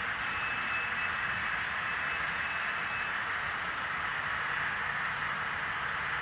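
Model railroad freight cars rolling along the track, a steady hiss-like rolling noise of wheels on rail, with a faint high whine for the first three seconds.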